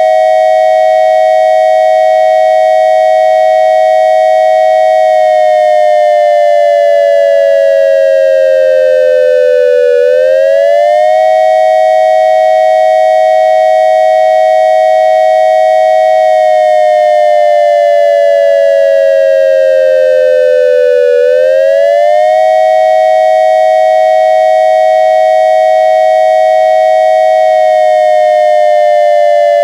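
Synthesized triangle-wave siren tone imitating a dual-tone ASC digital electronic siren controller sounding the attack signal. It runs loud and steady: the pitch holds level for about five seconds, slides slowly down for about five, then sweeps quickly back up, in a cycle that repeats about every eleven seconds.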